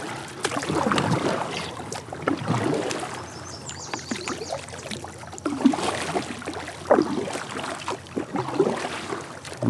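Water splashing and sloshing beside a kayak as a hooked smallmouth bass thrashes at the surface on the line.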